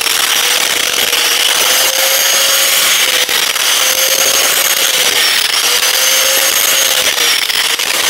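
Electric angle grinder running against a steel wheel hub flange, cleaning rust off it: a steady motor whine over harsh grinding noise, its pitch dipping a little and recovering a few times as it is pressed onto the metal.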